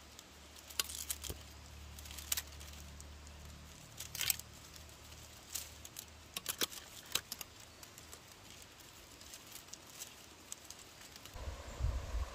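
Thin dry bamboo strips clicking and crackling as they are bent and threaded while weaving a bamboo fish trap, in irregular sharp snaps. Near the end a steady rush of flowing stream water takes over.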